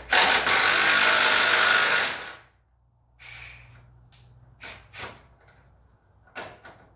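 A handheld power tool runs in one burst of about two seconds, backing out a fastener at the front of a Ford 7610 tractor's engine during disassembly. A few short metal knocks and clatters follow as the part and tool are handled.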